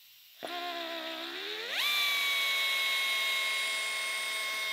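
Handheld drill starting about half a second in and spinning up, then rising sharply to a steady high whine. It is drilling an undersized pilot hole through a guide bushing into the aluminium cylinder head of an air-cooled Porsche 911 engine.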